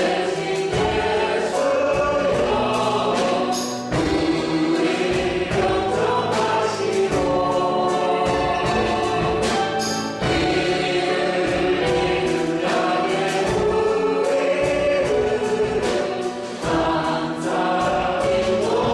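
Church praise team singing a worship song as a group, with band accompaniment and a steady beat.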